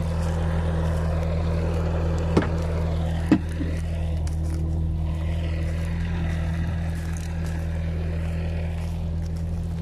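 Skid steer's engine running steadily, a constant low hum. Two short knocks come about two and a half and three and a half seconds in.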